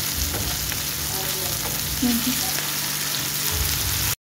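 Chopped onion and tomato sizzling steadily in hot oil in a frying pan while a wooden spatula stirs them. The sizzle cuts off suddenly near the end.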